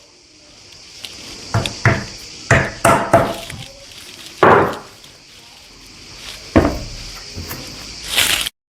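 Irregular knocks and thumps of a chair being handled as plastic caps are pressed and tapped onto its legs, over a steady high hiss. The sound cuts off suddenly near the end.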